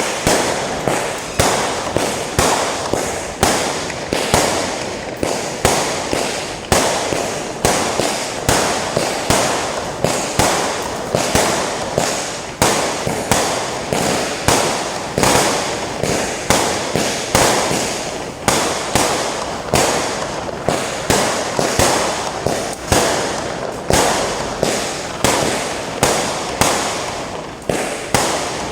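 Fireworks going off in a continuous barrage, with sharp bangs coming more than once a second over a constant crackle.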